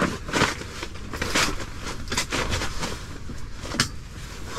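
Rustling and scraping with irregular clicks and knocks as a cot is pushed and worked into a small pop-up ice-fishing shelter, with one sharper knock a little before the end.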